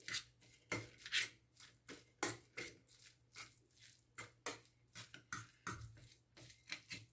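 Metal fork stirring and scraping in a stainless steel bowl through a wet sardine and onion mixture: a steady run of light clinks and scrapes, about two or three a second.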